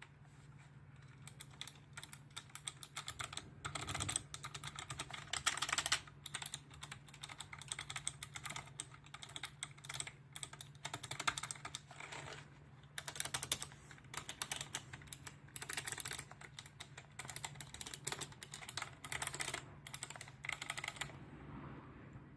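Typing on a Razer Ornata Chroma keyboard: quick runs of key clicks in bursts with short pauses between them, over a low steady hum.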